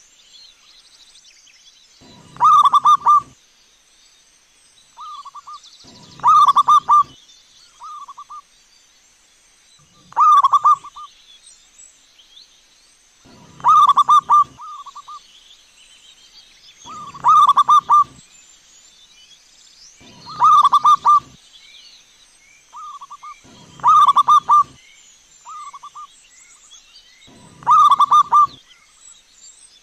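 Zebra dove cooing its rolling, stuttering song, a loud phrase about every three and a half seconds with fainter, shorter coos between them.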